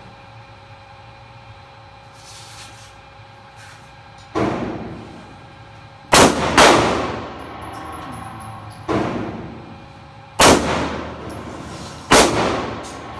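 Handgun fired six times at an indoor range, the shots a second or two apart except for a quick pair about six seconds in, each crack ringing off the range's walls.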